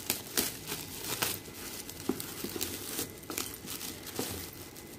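Gold metallic gift-wrap paper crinkling and tearing as a present is unwrapped by hand, in quick irregular rustles and crackles.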